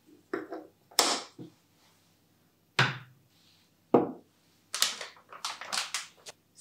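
Glass storage jars with bamboo lids being handled and set down on a table: a few separate knocks of glass and wood. Near the end, a plastic creamer bag crinkles as it is picked up.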